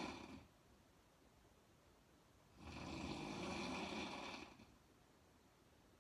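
A woman snoring in slow, even breaths: the end of one snore at the start, then one long snore of about two seconds in the middle, with a quiet pause before and after.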